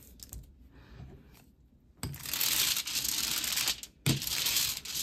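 Rubber hand brayer rolling tacky black lithographic ink over a dampened aluminium-foil plate: a dense hiss starting about two seconds in, in two long passes with a brief break just after four seconds. It follows faint wiping of the plate with a damp sponge.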